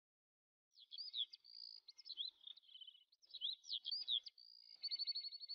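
Songbirds chirping: quick whistled notes sweeping up and down, with rapid trills, starting about a second in after a moment of silence.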